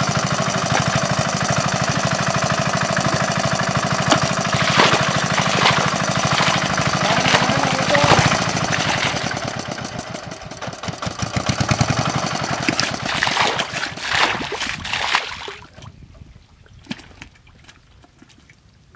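A small engine running steadily with a fast, even knocking beat, dropping away sharply about three-quarters of the way through.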